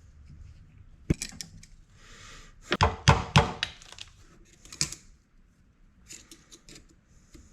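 Hand tools and metal pump parts clicking and clanking during the work of freeing the snap ring from the back of a GM Saginaw power steering pump. A cluster of sharp metallic knocks comes about three seconds in, with single clicks before and after.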